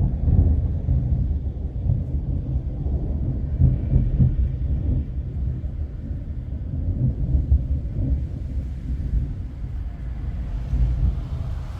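Thunder rolling in a long, low rumble that slowly fades away.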